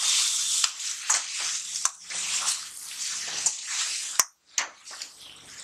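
Metal spatula stirring and scraping amaranth leaves and spice masala around a metal kadai, about two strokes a second, over the hiss of the greens frying. A sharp click about four seconds in, after which the sound is quieter.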